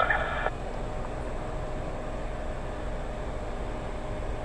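Jet engines of a taxiing Boeing 737 running at idle: a steady rumble and hiss with a faint steady hum.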